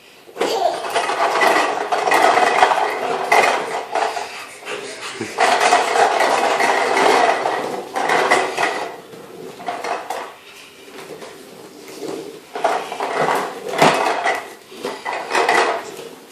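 Toddler's toy push lawnmower clattering and rattling as it is pushed along in uneven spells. The rattle is strongest for the first half, fades for a few seconds, then comes back in short bursts.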